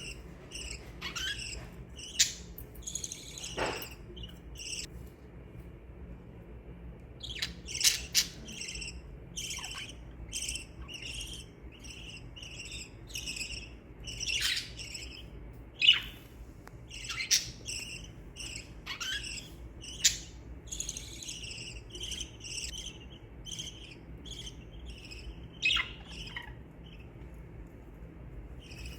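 Small pet parrots chirping and chattering: a dense run of short high chirps, several a second, with a few louder sharp calls standing out.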